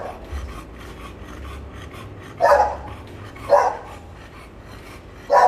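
Dog barking in three short barks: the first about two and a half seconds in, the next a second later, and the last near the end. Under the barks, a steady rasping pant comes from an American Bully standing with its mouth open.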